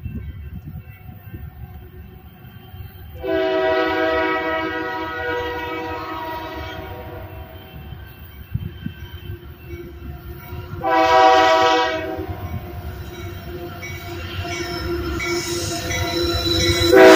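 Air horn of a Union Pacific freight locomotive sounding a long blast of about three and a half seconds, then a short one. The train's rumble grows as it approaches, and a third blast starts just at the end.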